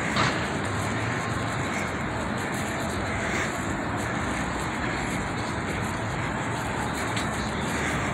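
Steady downtown street noise: a continuous hum of traffic.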